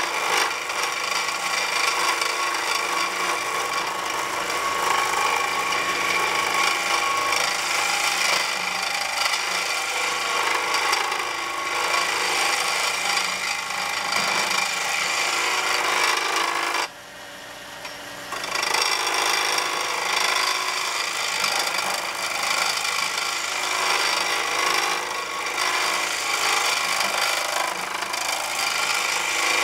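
Skew chisel cutting a spinning wooden pen blank on a wood lathe: a steady scraping hiss of shavings over the lathe's running hum. It stops for about a second and a half a little past halfway, with only the lathe left, then the cut resumes.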